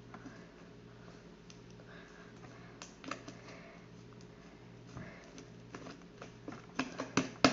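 Scattered soft clicks and taps over a low steady hum, coming closer together and louder in the last second or so.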